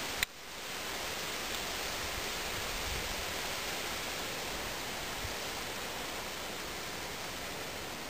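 Steady, even rushing hiss with no pitched sound in it, broken by one sharp click about a quarter second in, after which the hiss drops away and swells back up within half a second.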